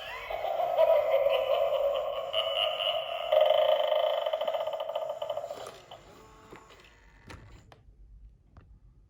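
Gemmy animated eyeball doorbell playing its low-pitched spooky sound effect through its small speaker: a wavering electronic sound that swells again about three seconds in and stops about six seconds in. A few faint clicks follow.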